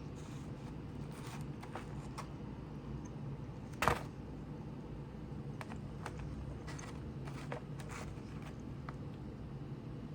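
Eating noises: scattered light clicks and taps of utensils and food, with one sharper knock about four seconds in, over a steady low hum.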